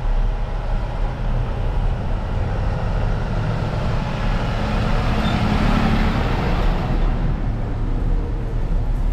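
A truck passing close on the street, its sound swelling to a peak in the middle and fading, over a steady low rumble.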